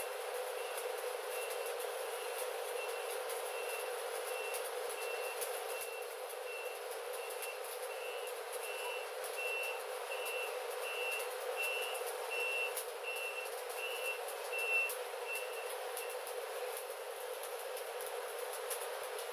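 Stick (SMAW) arc welding on the root of a 10-inch steel pipe elbow-to-flange joint: the arc crackles and sizzles steadily. A vehicle reversing alarm beeps in a steady string, about four beeps every three seconds, louder in the middle.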